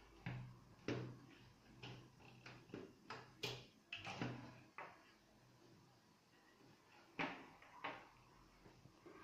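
Faint clicks and light knocks from 3D-printed plastic skull parts being handled and fitted together. There are about ten in the first five seconds, then two more a couple of seconds later.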